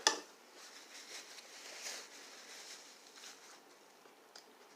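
Quiet chewing of a salad with crunchy seeds: a run of soft, irregular crunches and mouth sounds over the first three seconds, then a single small click near the end.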